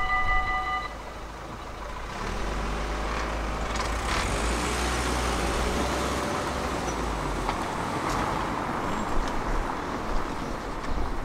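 Level-crossing warning bell ringing, then stopping just under a second in as the barriers finish rising. Then cars drive over the crossing one after another, with engine and tyre noise.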